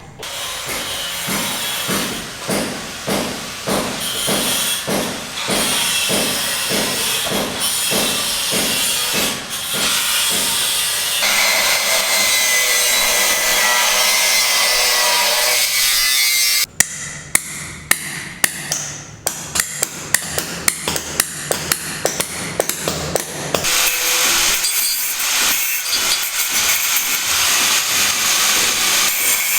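Tool work: even strokes about two a second for about ten seconds, then a steady noise for about five seconds, then a fast run of sharp knocks.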